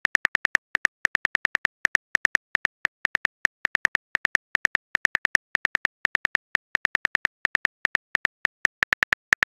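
A rapid, uneven run of phone keyboard tap clicks, about six to eight a second with short pauses: a simulated keystroke sound as a message is typed letter by letter in a texting-story app.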